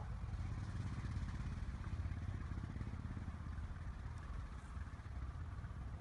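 A low, steady rumble with a fluttering texture.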